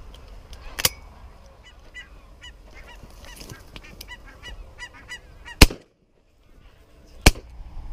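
Geese honking overhead in a run of short repeated calls, then two shotgun shots from a Browning B25 over-under about a second and a half apart, the first the louder.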